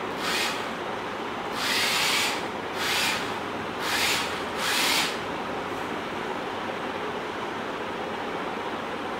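Small electric motors of a four-wheeled Arduino robot car whirring in five short bursts over about five seconds as it drives and turns, then stopping, over a steady background hiss.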